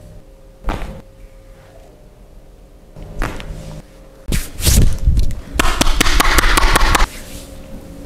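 Hands striking a person's body during a vigorous massage: a few single thuds and slaps, then a quick run of slaps, about seven a second, for a second and a half near the end.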